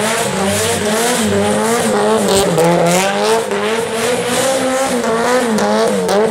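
A car doing donuts: the engine revs rise and fall in quick waves as the throttle is worked, over the squeal of the spinning rear tyres.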